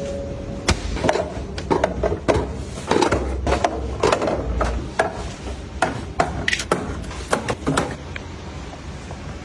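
Irregular clicks and knocks of small hard items, such as plastic containers, being handled and set down while things are organized.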